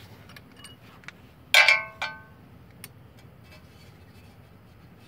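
Two sharp metallic clinks with a brief ringing, about half a second apart and a little over a second and a half in: a small steel hand tool knocking against metal at the brake hub. Faint clicks and ticks of handling sit around them.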